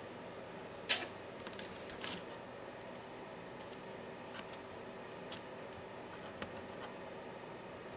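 Light clicks and scraping of laptop parts being handled and pried apart by hand during a teardown, with a sharper click about a second in and another about two seconds in.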